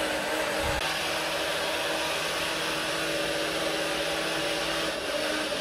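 A small electric appliance motor running with a steady whir and airy hiss under a low hum, with one dull thump a little under a second in.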